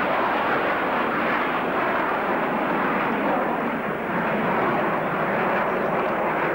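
Red Arrows' BAE Hawk jets flying in formation overhead: a steady, loud jet engine rush with no distinct tones.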